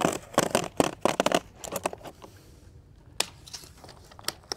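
Utility knife slicing through the fiberglass mesh lath of a dimple-mat drainage membrane: a quick run of irregular crackling snaps as the strands part. It pauses about two seconds in, then gives a sharp click and a few more snaps near the end.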